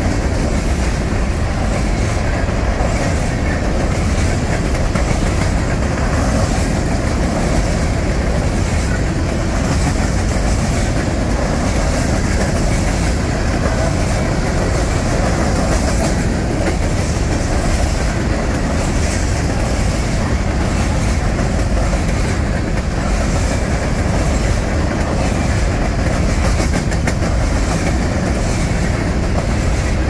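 Covered hopper cars of a freight grain train rolling past close by: steady rolling noise of steel wheels on the rails, with clickety-clack over the rail joints.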